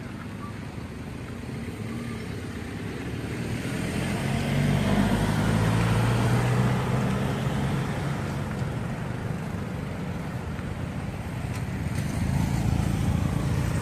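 A motor vehicle's engine passing by, growing louder about four to six seconds in and then fading, with another engine approaching near the end.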